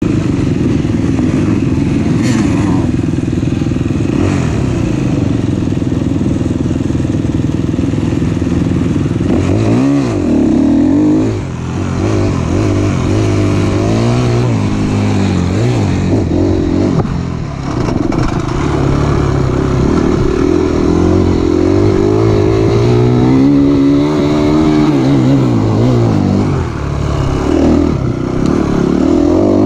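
Enduro motorcycle engine under hard riding, its pitch rising and falling again and again as it revs up and eases off, with a few brief throttle-offs where the sound dips.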